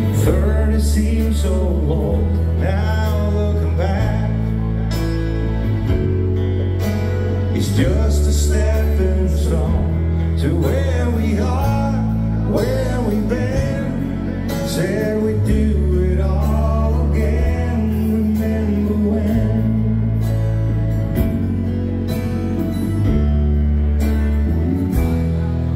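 Live dance band playing a slow country ballad: electric bass, keyboard and drums with cymbal strikes, under a melody line.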